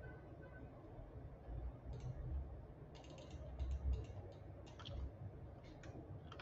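Faint, scattered clicks of a computer mouse and keyboard: a couple about two seconds in, then a run of them between three and five seconds, and a few more near the end.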